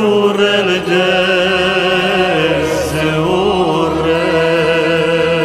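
Romanian Christmas carol (colind) singing: a voice holds a long, wavering, ornamented note over a steady lower note that steps down about halfway through.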